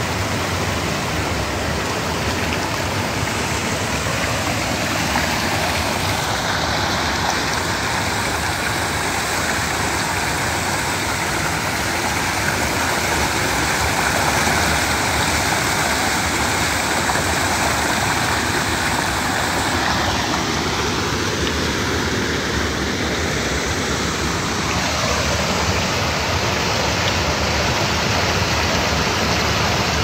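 Stream water pouring over a low rock ledge: a steady rush of running water close to the microphone.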